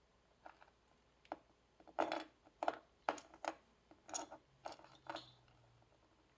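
Small plastic parts of a snap-together Blokees Transformers model kit clicking and knocking as they are handled and pushed together. There are a dozen or so quick light clicks with short rattles, coming thickest from about two seconds in.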